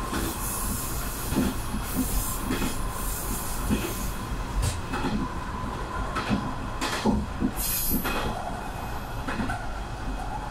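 Diesel railcar running along the track, heard from inside near the cab: a steady low rumble with wheel knocks over the rail joints every second or so. A brief high-pitched whine comes about seven and a half seconds in.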